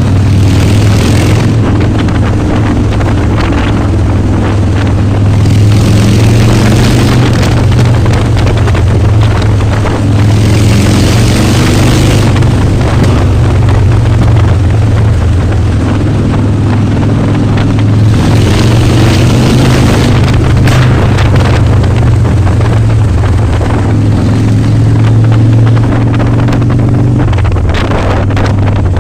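Harley-Davidson Dyna's V-twin engine running loud and rumbling at a fairly steady speed, with bursts of wind noise on the microphone at times.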